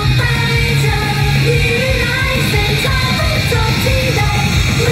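Female idol group singing together into microphones over loud backing music, live concert sound with a heavy, boomy bass.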